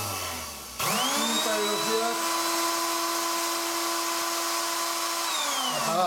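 Electric blender motor with carbon brushes, running with its housing off. It winds down at the start, is switched on again about a second in and runs up quickly to a steady whine, then is switched off near the end and winds down again. This is a test of the speed push-buttons, whose contacts are now switching the motor properly.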